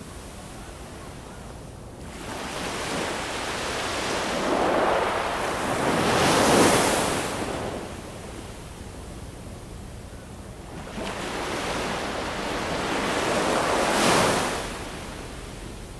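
Ocean surf: waves washing in as two slow swells of hiss, each building over a few seconds and falling away, the first near the middle and the second near the end.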